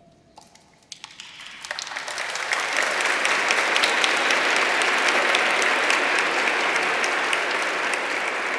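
Audience applause, a dense patter of many hands clapping, starting about a second in, swelling over the next second or two, then holding steady.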